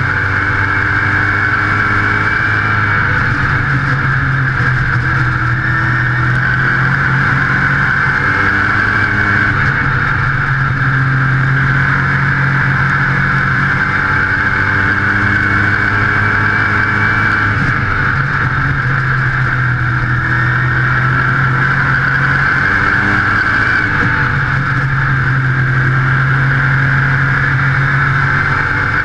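Modified race car's engine running hard at racing speed, heard from on board the car, its pitch rising and falling repeatedly as it goes around the oval.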